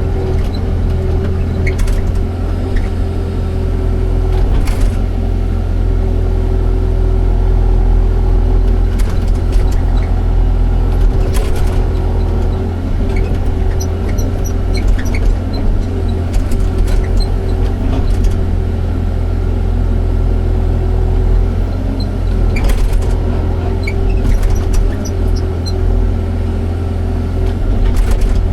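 Excavator's diesel engine running steadily, a deep continuous drone with a steady hum above it, with occasional short clicks and knocks.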